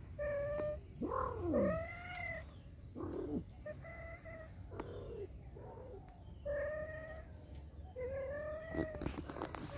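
Domestic cats yowling during mating: a string of short, drawn-out calls about once a second, some bending up and down in pitch. A few clicks come near the end.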